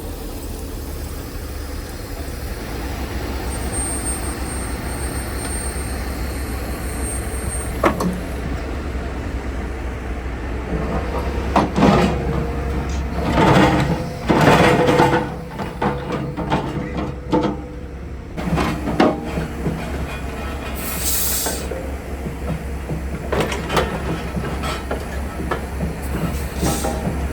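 Logging truck's diesel engine running steadily, with a series of metallic clanks and squeaks in the middle and a short hiss about 21 seconds in.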